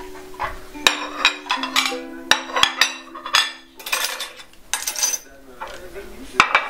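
China plates, spoons and a ceramic serving dish clinking and knocking on a marble tabletop in a quick run of sharp clinks, over background music of long held low notes.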